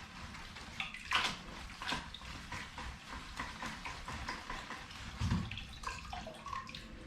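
Water sloshing and splashing in a bucket as a seedling's roots are swished about to wash the soil off, in irregular bursts.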